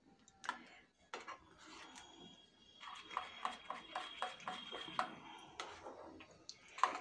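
Metal spoon beating a wet semolina-and-yogurt batter in a glass bowl, clinking against the bowl's sides in quick strokes, about three a second in the middle.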